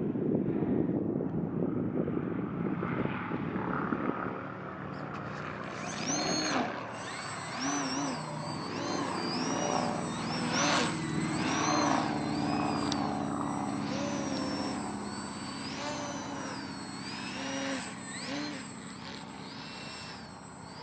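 Electric motor and propeller of a small foam RC aerobatic plane whining, its pitch swooping up and down again and again as the throttle is worked through 3D manoeuvres. Wind rumbles on the microphone, heaviest in the first few seconds.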